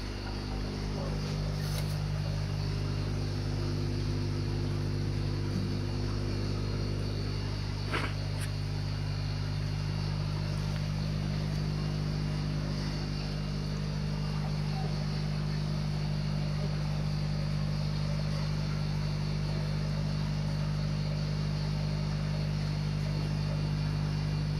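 A steady low mechanical hum, with a single short click about eight seconds in.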